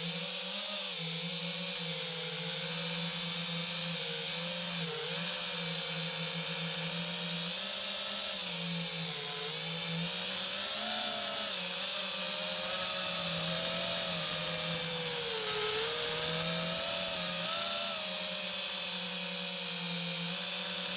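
FPV quadcopter's brushless motors and propellers whining. The pitch drifts up and down with the throttle.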